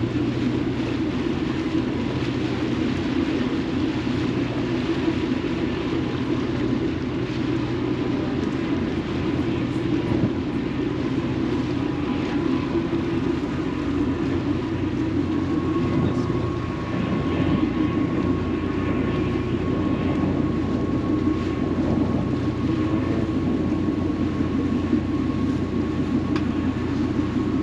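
Steady low drone of a large engine running, unchanging in level, with a faint thin high tone joining about halfway through.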